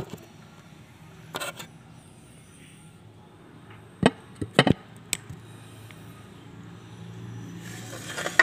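A smartphone being handled and repositioned on a counter: a couple of light clicks, then a quick run of four sharp knocks about four seconds in, over a low steady hum.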